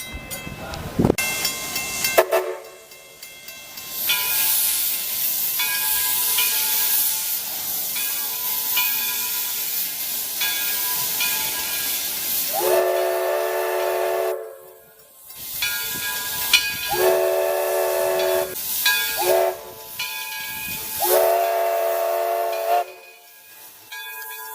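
Steam locomotive departing, its cylinders and valves hissing steam steadily while it blows its whistle four times, long, long, short, long: the grade-crossing signal.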